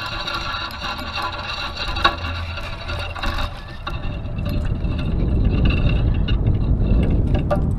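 Spinning reel being cranked, its gears giving a steady whir. From about halfway through, a low rumble of wind buffeting the microphone takes over.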